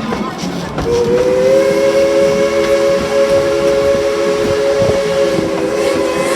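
Steam locomotive No. 190's chime whistle blowing one long blast, a chord of several steady tones that starts about a second in and is held, over the noise of the moving train.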